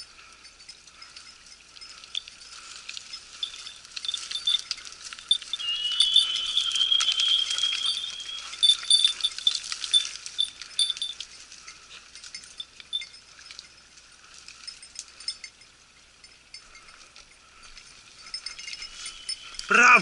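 A small dog bell jingling continuously on a hunting dog's collar as the dog works through scrub, loudest in the middle. A thin high tone sounds for a couple of seconds near the middle, and there is a brief loud sound at the very end.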